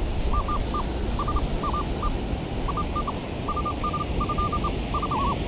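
Minelab Manticore metal detector sounding its target tone, a run of short high beeps in small irregular groups as the coil sweeps a target that the hunter thinks might be a deep can. A steady background rush runs underneath.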